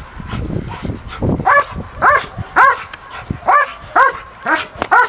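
Young DDR German Shepherd barking repeatedly in drive at an agitator during bite training: about seven sharp barks from a second and a half in, each a quick rise and fall in pitch.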